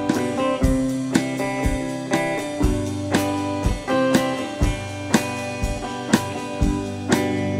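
A live rock band playing an instrumental passage with no singing: electric guitars over a drum kit keeping a steady beat of about two hits a second.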